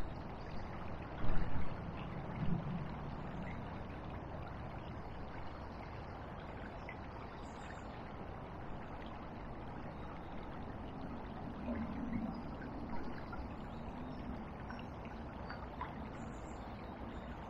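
Steady rush of a swollen river flowing past the bank, with two brief low thumps about a second and two and a half seconds in.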